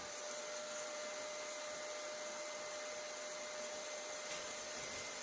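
Steady whirring hiss with a faint, even whine, from a 48 V 10 A switching power supply running under a load test.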